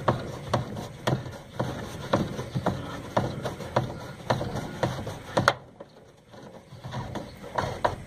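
The plastic drain-valve cover of a two-tub washing machine being fitted back onto the valve body by hand: a run of plastic clicks and knocks, about two a second, stopping about five and a half seconds in.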